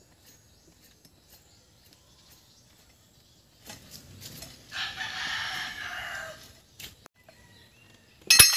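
A rooster crows once, a long call of nearly two seconds that drops slightly at its end. Near the end comes a single sharp, ringing metallic clank, the loudest sound here: a steel tool striking metal.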